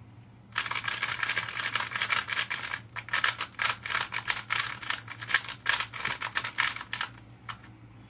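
MoYu WeiLong GTS2M magnetic 3x3 speedcube turned fast by hand: a rapid, uneven run of plastic clicks and clacks as the layers snap round. It starts about half a second in and stops about a second before the end.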